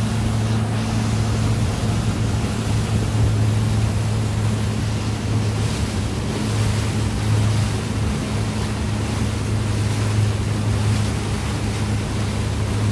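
Boat engine running at a steady speed, a constant low hum under the rush of water and wind past the moving boat.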